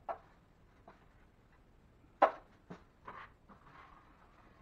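Drywall knife clicking and scraping as joint compound is worked. There are sharp clicks just after the start and, loudest, about two seconds in, followed by a few short scrapes.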